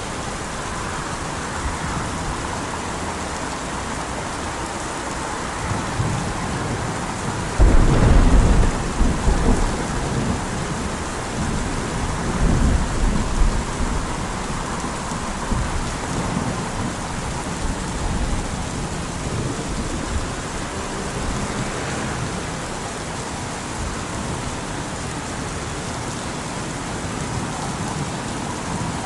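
Steady rain falling, with rolling thunder: a loud low rumble about a quarter of the way in and a weaker one a few seconds after.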